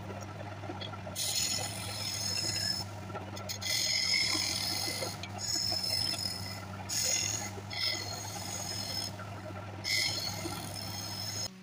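Electric wood lathe humming steadily while a hand-held turning chisel cuts the spinning wooden vessel in about six passes, each a second or two of hissing scraping. The hum and cutting stop abruptly near the end.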